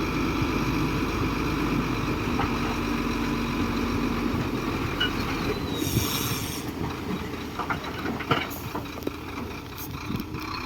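Heavy tracked earthmoving machine at work: a diesel engine running steadily, with the clatter and squeal of steel crawler tracks. A little past halfway the low engine drone drops away, and a string of sharp clanks and knocks follows.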